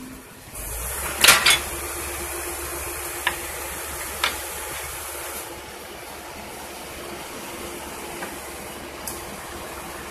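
Tracked excavator's diesel engine picking up to a steady run about half a second in, with metallic clanks of its steel tracks on the trailer's steel deck as it climbs on: a loud double bang just over a second in, then a few lighter single knocks.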